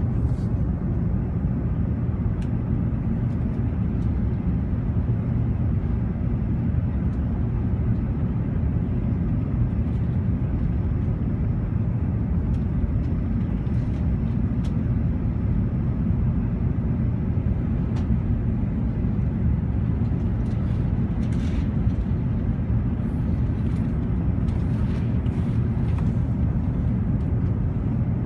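Steady cabin noise inside an Airbus A380 in flight: a constant low rumble of engines and airflow with no change in pitch or level.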